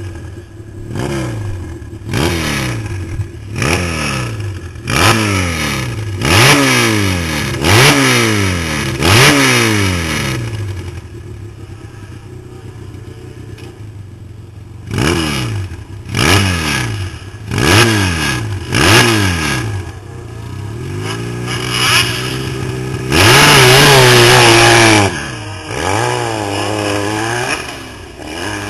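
Dirt bike engine blipped repeatedly, roughly one short rev a second, each falling back toward idle. After a pause it revs again, and near the end it is held wide open for about two seconds, the loudest part, before the note drops and wavers.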